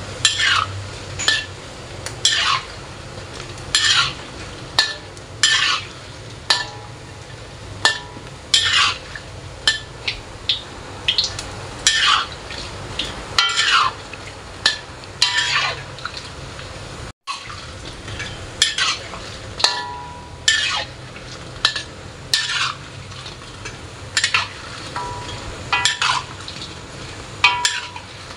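Dough balls deep-frying in hot oil in a wok, sizzling steadily, while a spatula stirs and turns them, scraping against the wok in repeated strokes about once a second.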